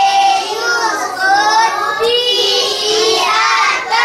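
A group of children's voices chanting in unison, sing-song, with long held notes.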